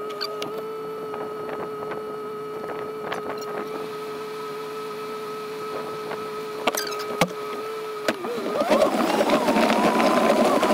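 A vehicle engine holds a steady pitch for about eight seconds, with a few light clicks over it. Then the pitch dips and climbs and the running turns louder and rougher as the throttle opens.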